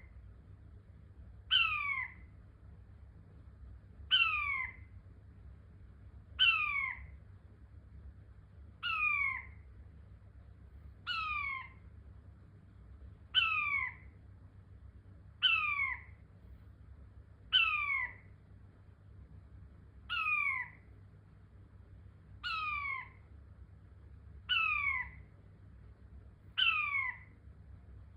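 King quail (Chinese painted quail) calling: a short falling whistle repeated about every two and a half seconds, twelve times.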